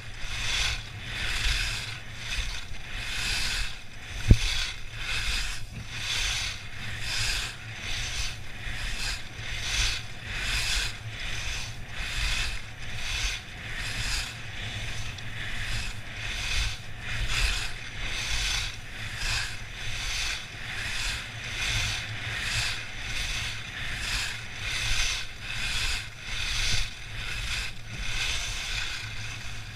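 Skis carving turns on groomed snow: the edges scrape the snow in a regular swish about once a second, over a steady low rumble of wind on the microphone. One sharp knock about four seconds in.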